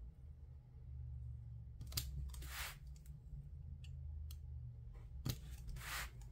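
Craft knife blade cutting through paper: a few short scratchy cuts, a pair about two seconds in and another pair near the end, over a low steady hum.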